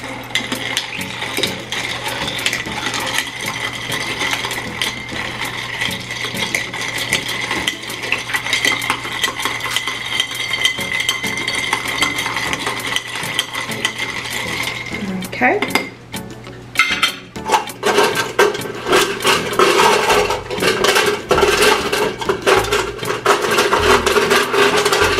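A spoon stirring a glass packed with ice and lemonade, ice cubes clinking rapidly against the glass and spoon. The clinking stops briefly about two-thirds of the way through, then starts again.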